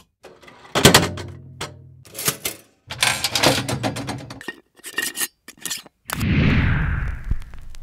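A run of scraping and clattering knocks, some followed by a short low ringing tone, then about six seconds in a sudden rush of noise with a deep rumble that slowly fades.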